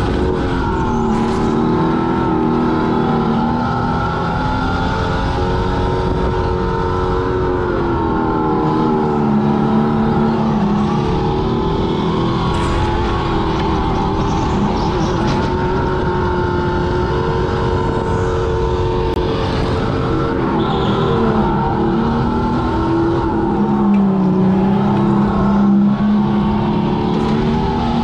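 Electric go-kart motor whining under a steady rumble of tyres and wind. The whine rises and falls in pitch several times as the kart slows for corners and speeds up again.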